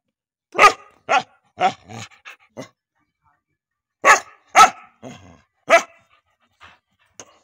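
A brindle mixed-breed dog barking in short single barks: a quick run of about six, a pause of over a second, then a few more.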